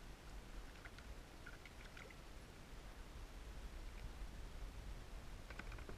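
Faint dripping and small splashes of water as a sabiki rig with hooked Spanish sardines is lifted out of the sea, in small clusters about a second in and again near the end, over a low steady rumble.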